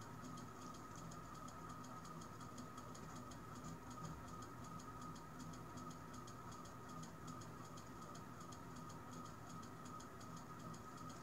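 Faint room tone: a steady high-pitched hum with a rapid, even ticking, several ticks a second.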